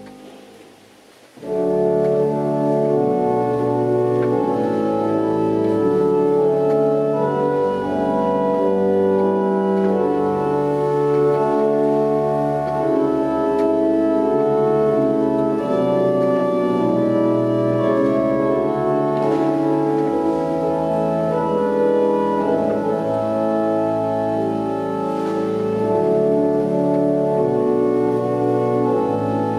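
Chapel organ playing a piece in sustained, changing chords. A note fades away at the start and the full organ comes back in about a second and a half in.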